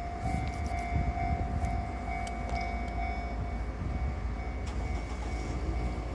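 A train rumbling over a Japanese level crossing, with scattered clicks from the wheels, while the crossing's warning bell rings with a steady high tone.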